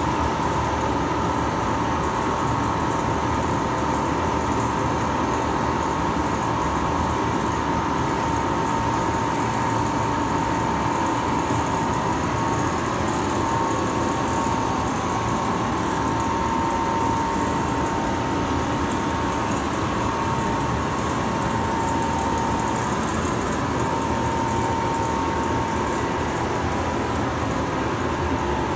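Computerized single-needle frame quilting machine running: a steady mechanical whir with a constant high hum.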